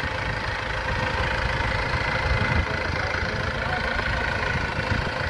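Fishing boat's engine running steadily at slow trolling speed, a constant low rumble with a steady hum above it.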